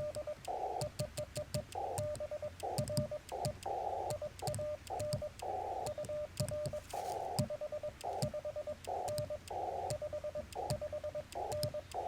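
Morse code (CW) from a Yaesu FT-891 transceiver: one steady mid-pitched tone keyed in quick dots and dashes, with bursts of band hiss between characters and sharp clicks from the twin-paddle key.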